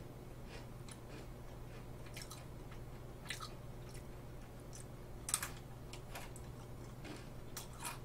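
Close mouth sounds of chewing a Lotte White Cookie Pepero biscuit stick: faint, irregular crunches and clicks, a few louder ones partway through and near the end.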